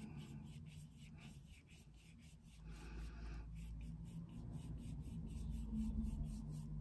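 Paintbrush stroking watered-down acrylic leather paint onto vinyl: faint, repeated brushing strokes. A low rumble joins about two and a half seconds in.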